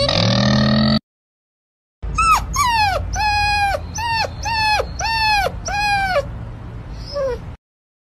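A puppy whining in a run of about six or seven short high-pitched cries, roughly two a second, each dropping in pitch at the start and then held briefly.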